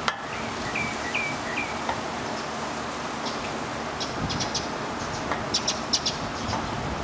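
A small bird chirps three short notes about a second in, over a steady outdoor hiss. Later come clusters of brief sharp metallic clicks as a nut driver turns a screw into the sheet-metal mailbox.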